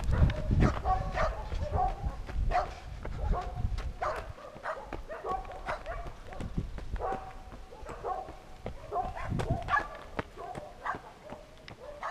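A dog barking over and over in quick, short barks.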